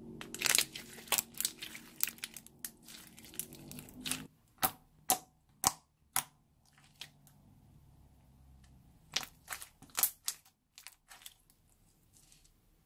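Clear slime being squeezed and kneaded, giving irregular sharp pops and clicks, dense at first, then sparser with another flurry past the middle.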